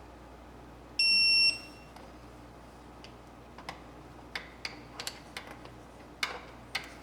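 Snap-on TechAngle electronic torque wrench giving a single high, steady half-second beep about a second in, its signal that the flywheel bolt has reached the set 16 foot-pounds. Later comes a run of short, irregular light metallic clicks and taps from the wrench and socket.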